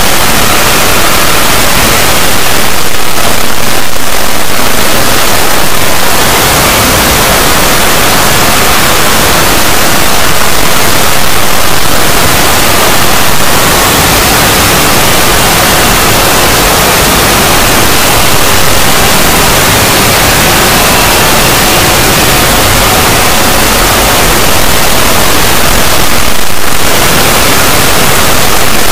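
Loud, steady hiss of static, like white noise, with faint tones buried under it.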